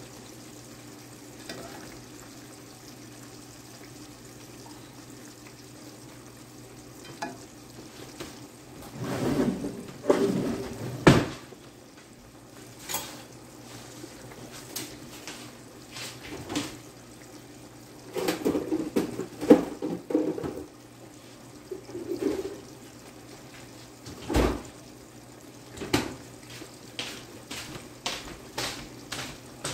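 Low steady sizzle of fries frying in hot oil, with scattered clinks and knocks of dishes and utensils. There are two spells of busier clatter, about a third and two-thirds of the way through, and a sharp knock later on.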